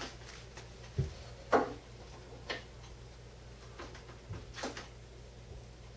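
Metal utensil clicking and knocking against a metal roasting pan while toothpicks are pulled from roasted ducks: a handful of scattered clinks, the sharpest about one and a half seconds in, with a duller thump just before it.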